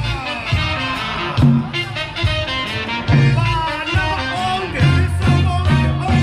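Upbeat music with a steady bass beat and a bright melody line.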